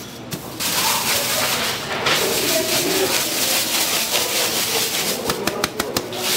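A loud, steady hiss starts suddenly about half a second in and carries on, with a quick run of sharp clicks near the end. Voices murmur underneath.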